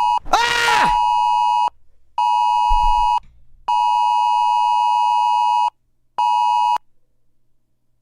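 Emergency alert attention tone: a steady two-tone beep sounding in on-off bursts of one to two seconds with short gaps, cutting off abruptly near the end. A brief cry of a voice, rising and falling, sounds over it about half a second in.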